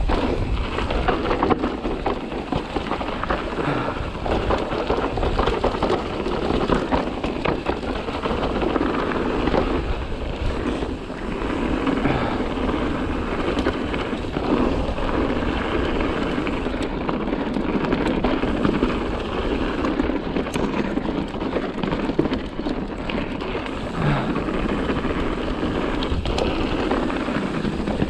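Mountain bike riding a rough dirt trail: a continuous rush of tyre noise over the trail surface, with frequent knocks and rattles from the bike over bumps and stones.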